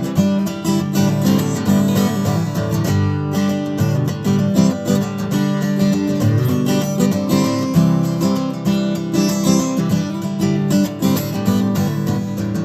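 Acoustic guitar strummed steadily in an instrumental outro, with no singing.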